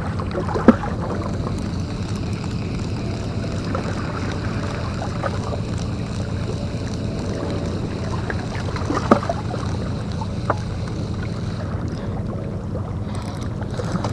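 Steady low engine drone with wind on the microphone, broken by a few sharp clicks, the loudest about a second in.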